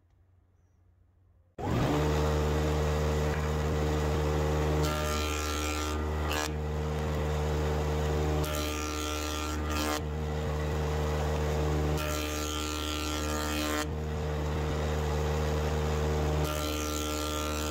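Jointer running with a steady machine hum that starts abruptly about a second and a half in. A louder, rougher stretch of cutting noise comes four times, every three to four seconds, as an oak board is passed over the cutterhead.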